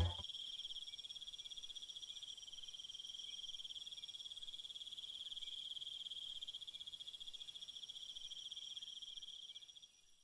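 Insects trilling: one steady, high-pitched, rapidly pulsing trill that fades out near the end.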